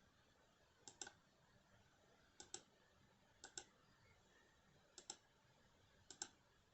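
Faint sharp clicks in close pairs, five pairs spaced about one to one and a half seconds apart.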